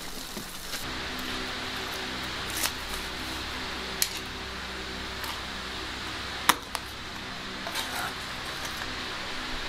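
Chef's knife cutting grilled jerk chicken on a wooden cutting board: a few sharp knocks of the blade on the board, the loudest about six and a half seconds in, over a steady hum.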